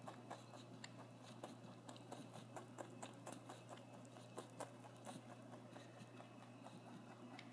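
Lop-eared rabbit chewing a cracker close to the microphone: faint, crisp crunches, several a second.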